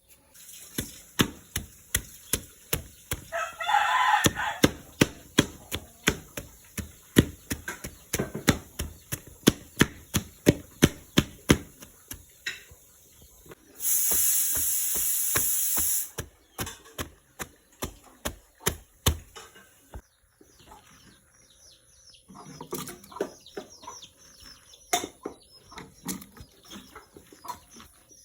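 Knife slicing bamboo shoot on a board in quick, repeated strokes, about two to three a second. A rooster crows briefly about four seconds in, and a loud, even hiss lasts about two seconds from roughly fourteen seconds in.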